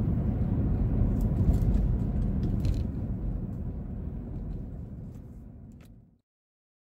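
Jeep Grand Cherokee's 5.7 HEMI V8 and road noise heard inside the cabin while cruising: a steady low rumble with a few light clicks. It fades out over the last few seconds and cuts to silence about six seconds in.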